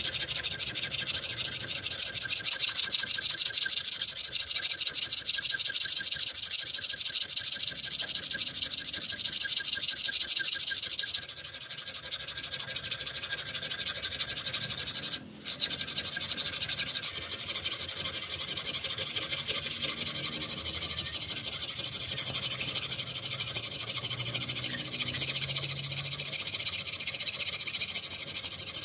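Flat hand file rasping back and forth across the steel bevel of an axe head clamped in a vise, filing it down to bare metal. The scraping drops in level about eleven seconds in and breaks off briefly a few seconds later.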